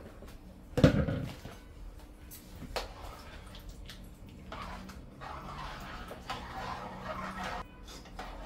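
A single loud knock about a second in, from the plastic bowl against the steel pot, then a spoon stirring rice in coconut milk in the pot, a soft wet scraping and sloshing from about halfway.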